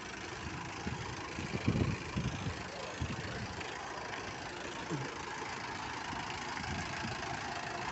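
Vehicle engine running at idle, a steady hum, with a few dull low thumps about two seconds in.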